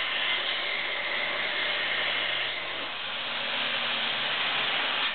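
Homemade 2x72 belt grinder, driven by a 1.5 hp three-phase motor, running with its abrasive belt hissing steadily as a piece is held against it for grinding.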